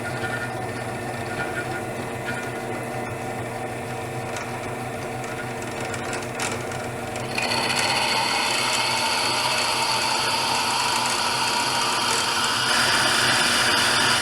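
Drill press motor running steadily after being switched on. About seven seconds in, a louder, gritty grinding joins it as the diamond bit cuts into the glass.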